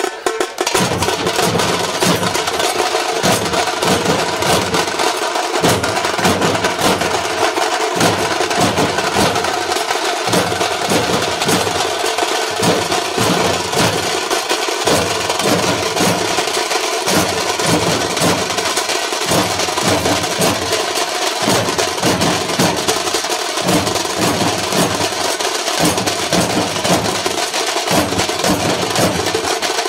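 Maharashtrian dhol troupe playing: many large barrel dhols beaten together in a fast, steady, driving rhythm, with sharp high clattering hits over the deep strokes.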